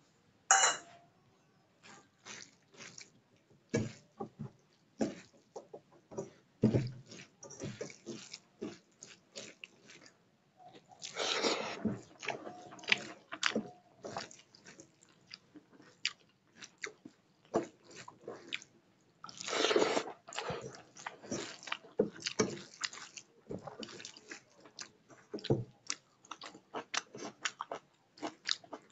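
Eating rice and dal by hand from a steel plate: fingers mixing the rice, and chewing, in irregular bursts with many short clicks and knocks.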